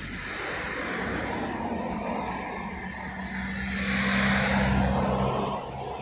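A motor vehicle going by: a low engine hum with tyre hiss that swells about four seconds in and drops away near the end.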